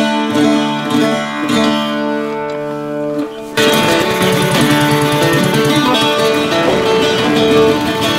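Background guitar music with plucked and strummed notes, turning suddenly fuller and busier about three and a half seconds in.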